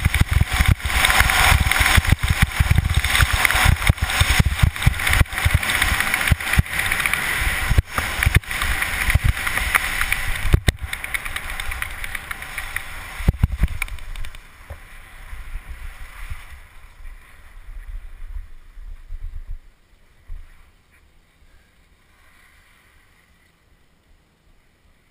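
Skis running fast over packed snow, heard through a helmet-mounted GoPro: a loud rush of wind and scraping with frequent knocks and clatters. The noise dies down from about fourteen seconds in as the skier slows, and is faint after about twenty seconds once stopped.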